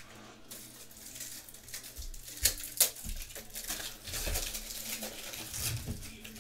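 Crinkling and rustling of plastic card packaging as trading cards are handled, with irregular small clicks and two sharp clicks close together a little before the middle.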